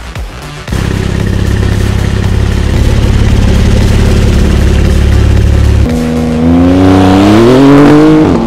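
Porsche 992 Carrera's twin-turbo flat-six through a VRP x TFL valvetronic exhaust, coming in abruptly with a deep, steady rumble. About six seconds in it changes to the car accelerating, the pitch rising steadily, then dropping at an upshift near the end.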